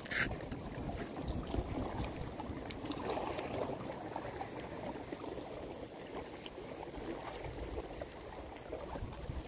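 Shallow seawater lapping and trickling over shore rocks, a low steady wash with a few faint ticks.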